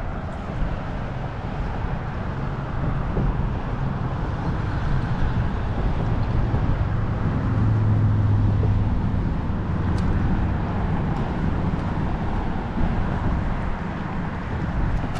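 Road traffic on the bridge: a steady low rumble of passing vehicles that swells to its loudest about halfway through and then eases.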